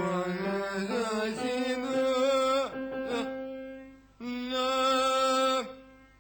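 A voice singing long held notes without words. It steps between notes at first, swoops in pitch around the middle, and stops briefly before two more sustained notes.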